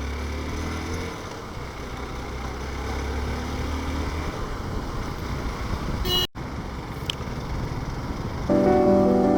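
Traffic and engine noise while riding a motorcycle on a city road, a steady low hum under a hiss of road noise, broken off sharply about six seconds in. Background music comes in near the end.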